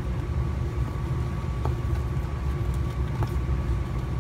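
Steady low rumbling hum with a faint high steady tone running through it, and two faint clicks.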